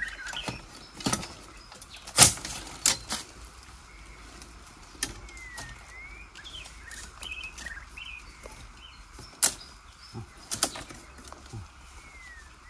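Irregular sharp knocks and cracks, the loudest about two seconds in, as wild bamboo shoots are cut and handled. A few short bird chirps sound in the background.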